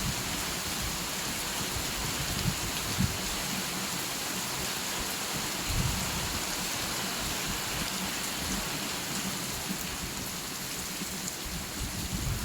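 Steady rain hissing without a break, with a few brief low thumps or rumbles about two to three seconds in and again near six seconds.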